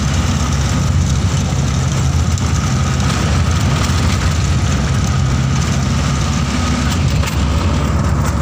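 Steady low engine drone and road noise inside the cabin of a moving passenger vehicle, with no change in revs.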